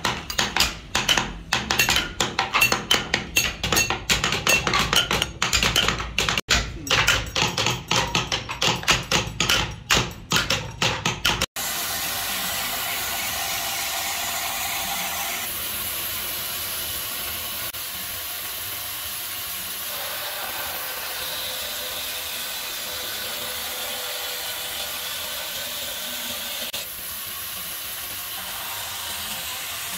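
A wooden mallet tapping a carving chisel into a wooden panel in quick, sharp knocks. After a cut, a large band saw runs steadily with a hissing whir, its level stepping up and down a few times as it cuts thin wooden panels.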